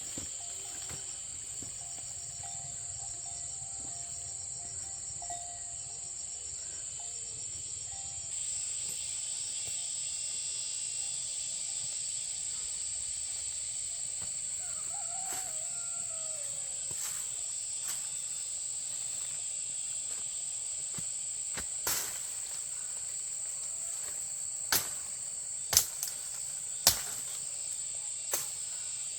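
Insects trilling steadily at a high pitch. Several sharp knocks come in the last few seconds.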